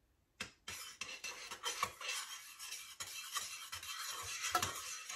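A metal spoon stirring arrowroot powder into the cream mixture in a small stainless-steel saucepan: a quick, gritty scraping against the pan with small clinks. It starts about half a second in.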